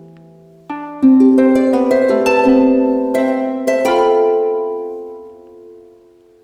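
Background music: a phrase of plucked string notes, each struck sharply and ringing away, that dies out near the end.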